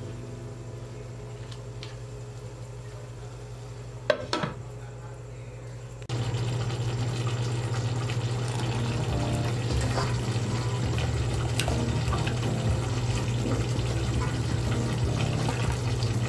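Ground meat being stirred with a spatula in a nonstick pan, with a few sharp clicks about four seconds in. About six seconds in it cuts to a louder, steady bubbling of spaghetti boiling in a pot while tongs lift the noodles. A steady low hum runs underneath throughout.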